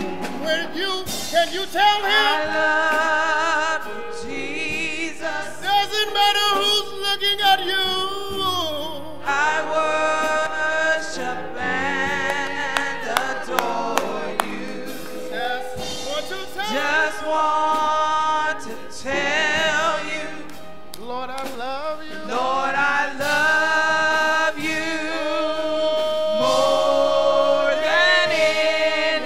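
Gospel song sung by several voices on microphones, with wavering, drawn-out notes and one long held note near the end.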